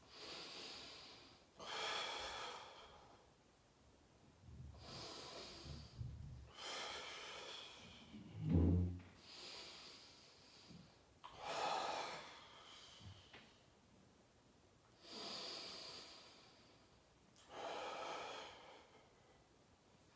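A man breathing hard through a set of hamstring bridges, about eight long hissing breaths with pauses between them. A short low thump about halfway through is the loudest sound.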